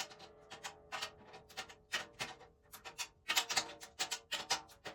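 Light, quick taps on the batter head of a 14 x 8 inch maple stave-shell snare drum, several a second and irregular, each leaving a short ring at the drum's pitch. These are tuning taps, checking the pitch while the head is being slackened down toward a medium tuning.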